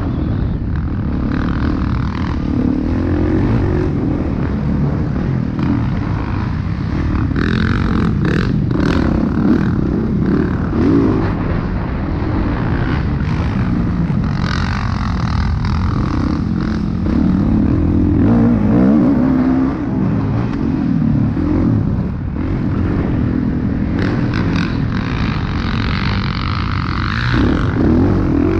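Motocross dirt bike engine under a rider at race pace, the revs rising and falling repeatedly as it accelerates and backs off through the track's straights and turns.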